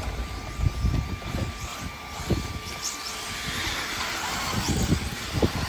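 Electric 1/10-scale RC off-road buggies racing on a dirt track: a steady mix of motor whine and tyres on the loose clay, with a few light knocks.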